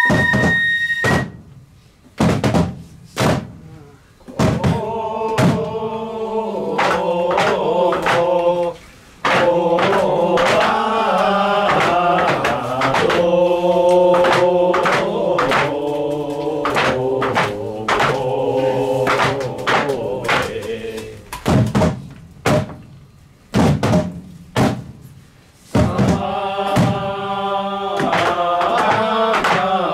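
Several voices chanting a lion-dance song together to sharp, repeated drum strikes, with a bamboo flute holding a high note for the first second. The singing stops twice and picks up again near the end.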